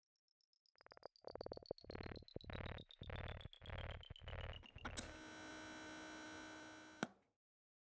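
Electronic intro sting: a high synth tone falls steadily while about seven buzzy pulses sound, roughly two a second. It ends in a held synth chord of about two seconds that stops with a click.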